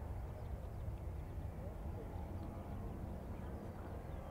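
Low, steady distant rumble of a Boeing 787-9's jet engines as the airliner moves along the runway, with faint voices and a few faint high chirps over it.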